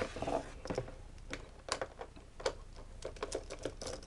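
Irregular light clicks and taps of a plastic appliance case being handled while its screws are taken out.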